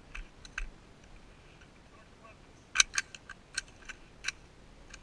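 Rifle being handled for a reload, making sharp metallic clicks: two faint ones near the start, then a quick run of about six more in the second half, the first of these the loudest.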